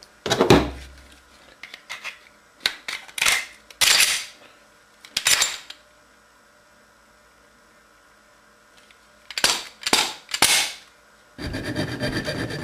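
Sharp metallic clacks of a Glock 23 pistol's slide and parts being worked and knocked, several separate ones with pauses between. About eleven seconds in, a hand file starts rasping in quick strokes on the slide's worn slide-stop notch, squaring it so the slide stays locked back when a full magazine is inserted.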